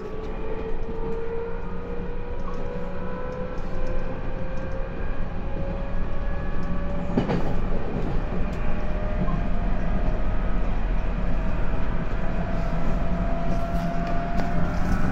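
Running sound of a 211 series electric train with outer-fan traction motors: a motor and gear whine rising slowly in pitch as the train gains speed, over a steady rumble of wheels on rail. A single sharp knock comes about seven seconds in.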